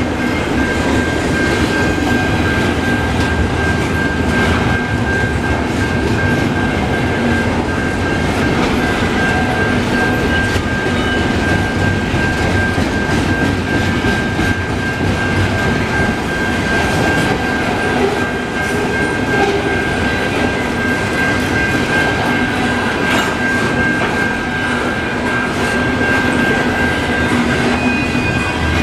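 Freight train of intermodal container well cars rolling slowly past, wheels clattering over the rail joints, with a steady high-pitched squeal from the wheels or brakes throughout.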